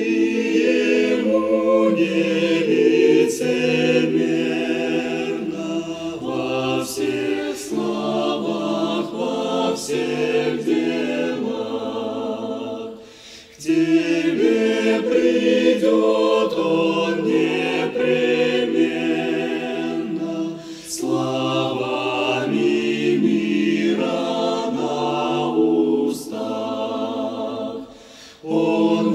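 Church choir singing a hymn in several-part harmony, in long sustained phrases with brief breaks between lines.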